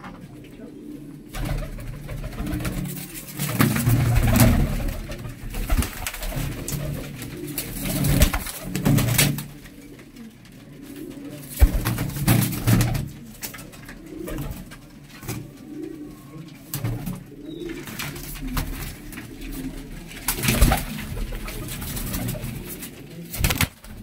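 Domestic pigeons cooing in a small enclosed loft, a low rolling coo repeated over and over, mixed with sharp flaps and claps of wings as birds take off from and land on a wooden perch.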